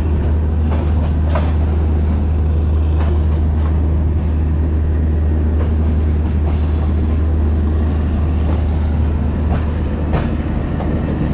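Moving passenger train's coaches running on the rails just after departure: a steady low rumble with irregular clicks as the wheels cross rail joints and points, and a short high squeal about seven seconds in.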